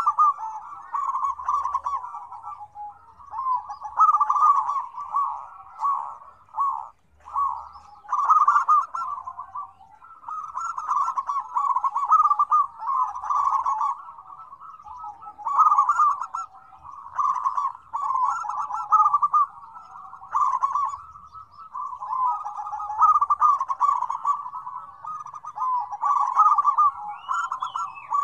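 Several zebra doves (perkutut) calling at once, their rapid stuttering coos overlapping into a busy, near-continuous chorus with only brief gaps.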